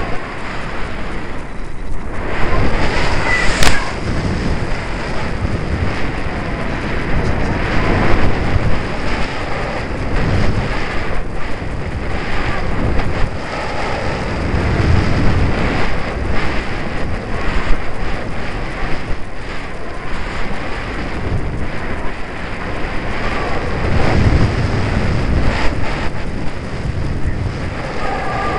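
Airflow rushing and buffeting over the microphone of a camera mounted on a radio-controlled model plane in flight, with rumbling gusts that swell and fade every few seconds. A single sharp click sounds a few seconds in.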